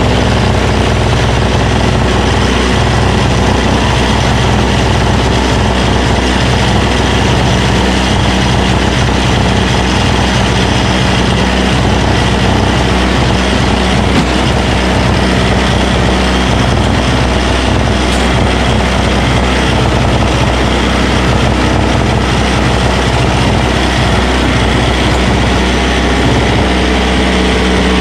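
Craftsman single-stage snowblower's 5 hp Tecumseh engine running steadily, its paddle auger spinning. The auger keeps turning whatever the control is set to, which is not normal.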